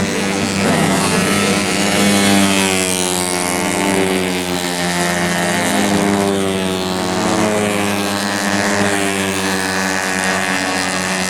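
Several tuned 130 cc automatic racing scooters running at high revs, their overlapping engine notes rising and falling in pitch.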